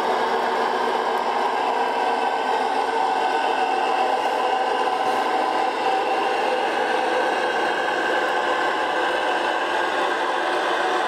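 O-gauge model train running along the track, a steady whir from its motor with the rattle of wheels on rail.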